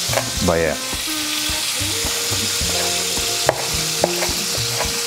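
Diced bacon frying in olive oil in a pan on a gas burner, sizzling steadily. Scattered sharp knocks of a chef's knife chopping chili on a wooden cutting board come through over the sizzle.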